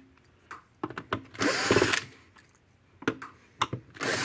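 Cordless drill-driver backing screws out of an electric fence energizer's case. It runs in short bursts, one of about half a second around a second and a half in and another starting near the end, with light clicks of the bit on the screws between.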